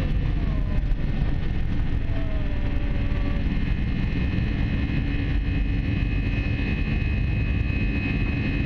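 Steady cabin noise of an Airbus A320 airliner in flight: jet engine drone and airflow rumble with a few steady high engine tones. A couple of faint gliding tones rise and fall in the first few seconds.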